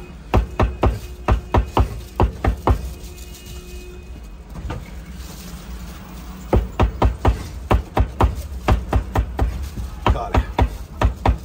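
Cleaver chopping on a wooden chopping board: quick, even strokes about three or four a second, in two runs with a pause of a few seconds between them.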